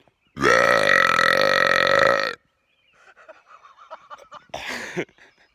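A man's long, loud burp lasting about two seconds.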